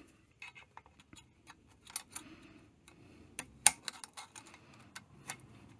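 Irregular light metallic clicks and taps of a screwdriver tip prodding at a stuck exhaust valve collet inside a valve spring compressor, working it loose from the spring plate. The sharpest click comes a little past halfway.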